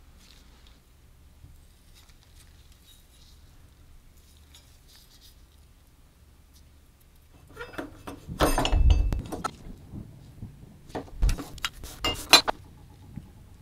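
Metal parts of a rusty old Nestor Johnson manual card shuffler clinking and rattling together as it is taken apart by hand. The first several seconds are quiet handling; the clinks bunch up about eight seconds in, followed by a few sharp metallic clicks near the end.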